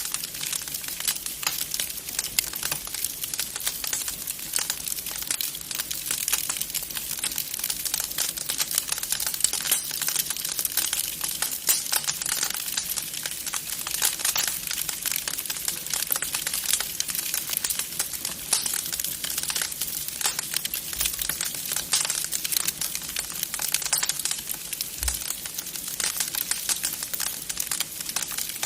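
Wood fire crackling in a fireplace: a dense, steady run of small sharp pops and snaps.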